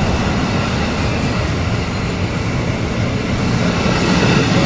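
NJ Transit bi-level MultiLevel passenger cars rolling past close by, a steady loud rolling noise of wheels on the rails.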